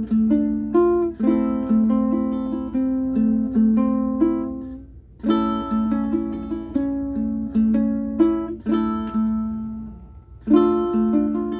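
aNueNue Green Bird ukulele with low-G strings being fingerpicked: single plucked notes played in short melodic phrases, with brief pauses about five and ten seconds in.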